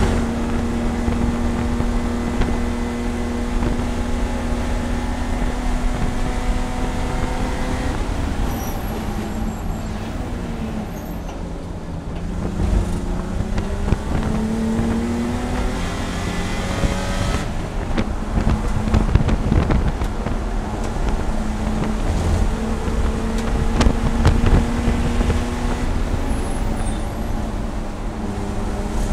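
BMW E30 race car's engine heard from inside the cabin, running hard at high revs. About eight seconds in the revs fall as the car slows for a corner, then climb again in several rising pulls as it accelerates out, over steady road and wind noise.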